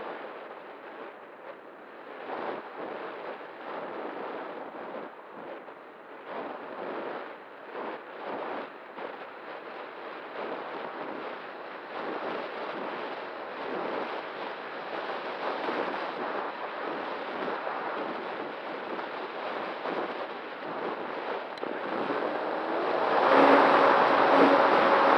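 Airflow rushing and fluttering over the E-flite Night Radian glider's onboard FPV camera microphone in flight. Near the end it grows louder and a steady hum joins in.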